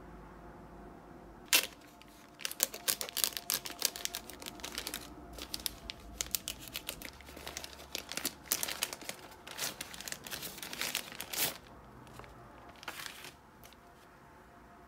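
A plastic poly mailer being torn open and crinkled by hand. A sharp snap comes about a second and a half in. Rapid crackling tearing and crumpling follows for about nine seconds, then one short last crinkle near the end.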